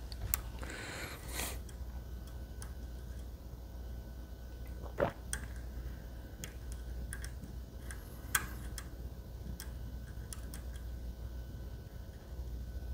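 Pick and tension wrench working the pins of a Medeco lock cylinder held in a vise: faint, irregular small metal clicks and ticks, with two louder clicks about five and eight seconds in, over a steady low hum.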